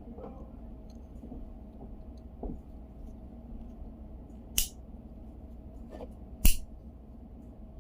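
A few short, sharp clicks of small hard parts being handled, about four in all, the loudest near the end, over a steady low hum.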